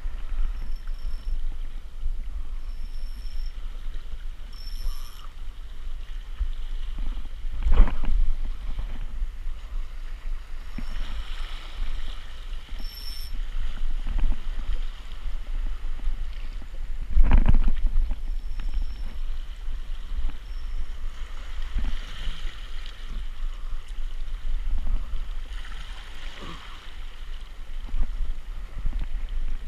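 Wind rumbling steadily on the microphone, with two dull thumps about eight and seventeen seconds in.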